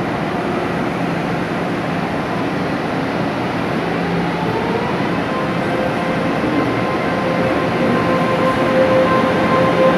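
Taiwan Railway EMU500 electric multiple unit pulling away from the platform: its traction motors set up a whine that rises in pitch about four seconds in, then holds steady as the train speeds up, growing louder as it draws near.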